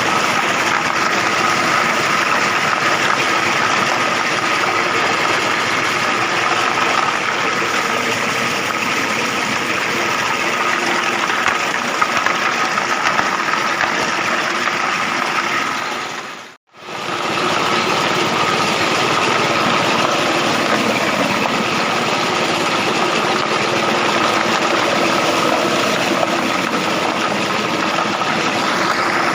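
Chicken feather plucker machine running with a steady mechanical hum. The sound breaks off briefly about sixteen seconds in and resumes.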